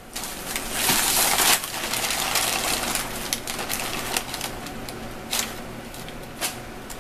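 Crunchy brown paper crinkling and rustling as a cat wriggles underneath it, with a long loud crackle about a second in, then scattered sharp crackles.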